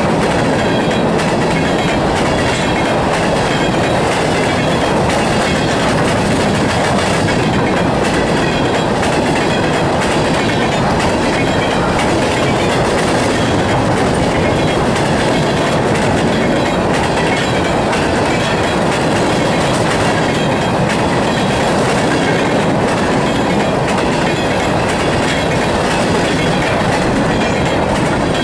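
Empty covered hopper cars rolling past close by: a loud, steady rumble of steel wheels on rail with clickety-clack over the rail joints.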